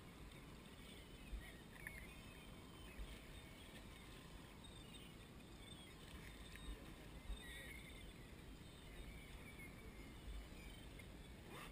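Near silence: a faint low rumble of wind and water, with a few faint knocks and faint high chirping calls.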